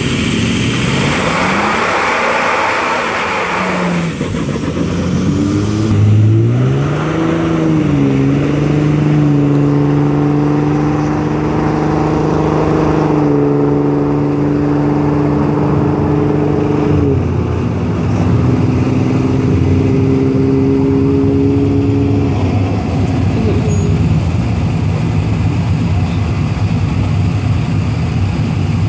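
Diesel pickup trucks drag racing, a 2004 Ford F-250 with the Power Stroke V8 against a Cummins-powered truck. A loud launch is followed by an engine note that climbs in pitch as the trucks accelerate, then steps down at two gear shifts and stops a little after three-quarters through.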